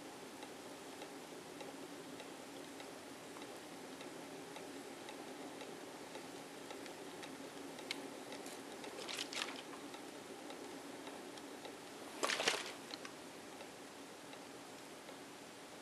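Small 3D-printed electrostatic motor spinning its plastic propeller on charge from a bottle of charged water held beside it. It gives a faint steady whir with light ticking. Two short, louder crackles stand out, about nine and twelve seconds in.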